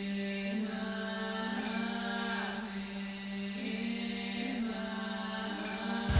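Droning, chant-like music held on one low note, with higher tones drifting slowly above it; a deeper bass comes in right at the end.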